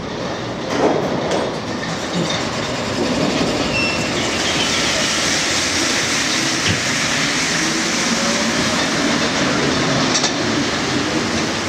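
Rubber-tyred Paris Métro trains running through a station: one pulling out while a second rolls in on the other track and slows to a stop. A steady rolling rumble that grows louder about three seconds in, with a few thin squeals.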